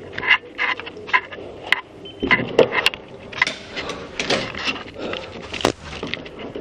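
Rustling with a run of sharp clicks and knocks, from a handheld camera being carried and handled on the move.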